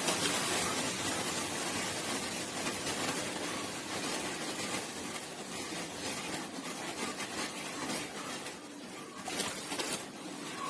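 Milk sizzling as it is poured little by little into gram flour roasted in hot ghee, the hiss slowly dying down. A few clicks of a spoon against the pan come near the end.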